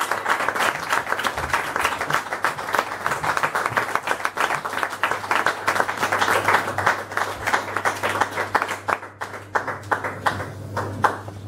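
Audience applauding with many quick hand claps, thinning out over the last couple of seconds, over a steady low hum from the sound system.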